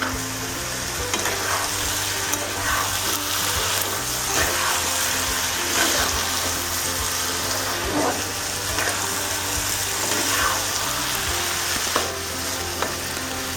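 Chicken, banana flower, lentils and potato sizzling in a kadai after a splash of water, while a spatula stirs and scrapes the pan with a stroke every second or two.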